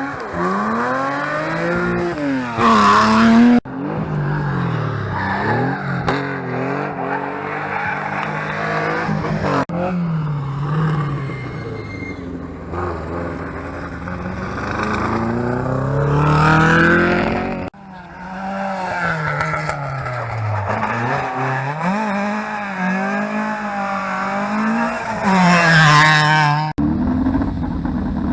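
Historic rally cars on a closed stage, one after another, engines revving hard, the pitch climbing and dropping through gear changes, each loudest as it passes close. The sound breaks off abruptly between cars.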